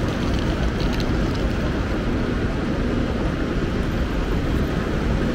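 Steady low rumble of a Deutsche Bahn ICE 3 high-speed train running.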